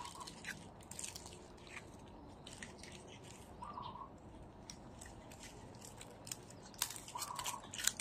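Dry, grill-charred banana leaves crackling and crinkling in irregular bursts as a leaf-wrapped fish parcel is pulled open by hand, busiest near the end. A faint short chirp sounds twice.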